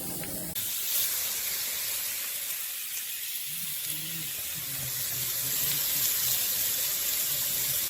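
A steady hiss throughout, with a faint low hum or murmur partway through.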